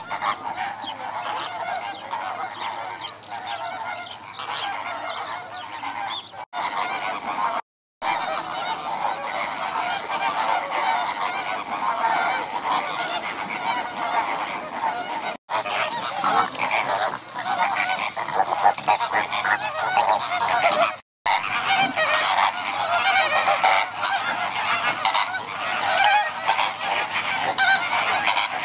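A flock of greater flamingos honking and gabbling, many goose-like calls overlapping in a continuous chatter. The sound drops out briefly four times.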